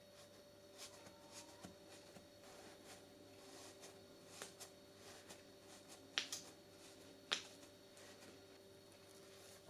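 Near silence with a faint steady hum, broken by scattered small clicks and taps, the sharpest about six seconds in and again about a second later.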